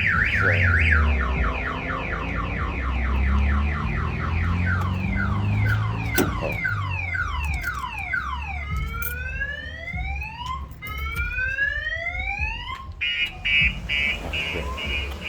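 A car alarm siren cycling through its tones: a fast warble, then a long run of falling chirps, then rising whoops, then rapid steady beeping near the end, with a low rumble underneath.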